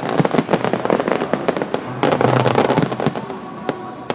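Fireworks display: dense crackling of many small bursts, with sharper bangs among them.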